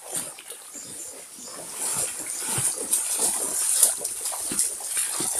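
People wading through shallow water, each step a splash and slosh in an uneven run that grows louder about two seconds in.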